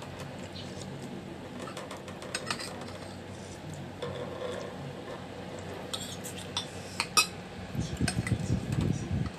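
Metal spoon and fork clinking and scraping against a plate during a meal, in scattered small clicks, the loudest about seven seconds in.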